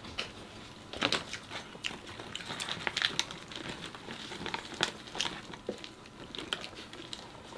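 Disposable plastic gloves crinkling and rustling as hands roll spring rolls in rice paper, with irregular small crackles and clicks.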